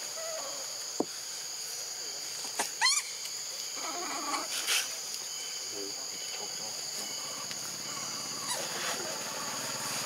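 Steady high-pitched insect drone, with a few short animal squeaks over it. The loudest is a sharp rising squeal about three seconds in.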